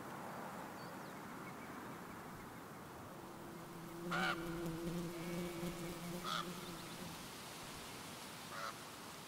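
Rural outdoor ambience: a steady wind-like hiss with a few short bird calls, about four seconds in, six seconds in and near the end, over a low drawn-out hum in the middle.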